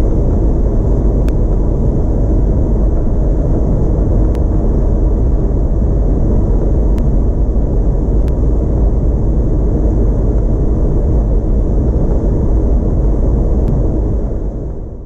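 Steady engine and road noise inside a motorhome's cab cruising at motorway speed, heaviest in the low rumble, with a few faint ticks; it fades out near the end.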